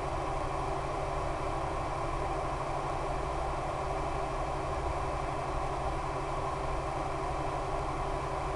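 Steady drone of an RC plane's E-flite Power 10 brushless electric motor spinning an 11x7 APC propeller in flight, with an even hiss over it.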